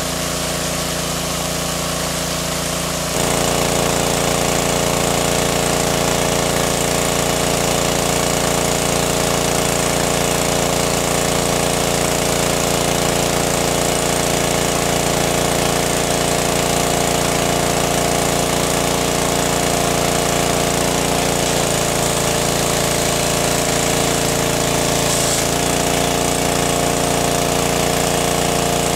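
Engine-driven water pump running steadily, pumping water out of a lake. It gets louder about three seconds in, and its note dips slightly for a few seconds near the end.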